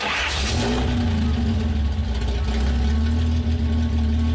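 Datsun L28 inline-six engine running at a steady high idle through open headers, with no mufflers. The sound comes in abruptly with a short rush of noise, then settles into an even idle.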